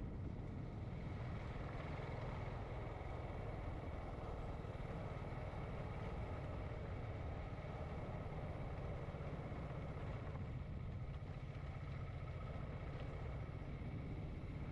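Sport motorcycle riding at a steady cruising speed: an even engine and road rumble, heard through a helmet-mounted camera.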